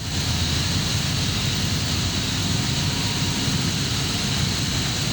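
Steady running noise of air-conditioning chiller plant machinery: a constant low rumble with a high whine held over it.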